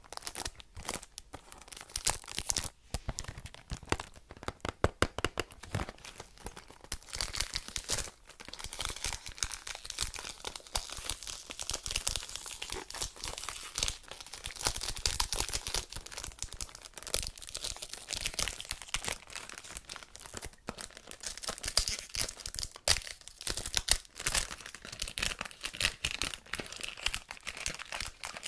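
Clear cellophane wrap being torn and peeled off a perfume box: continuous crinkling and crackling made of many sharp little clicks.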